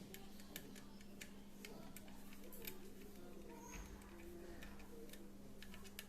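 Faint, irregular small clicks and taps of laptop parts being handled and fitted during reassembly, over a steady low hum.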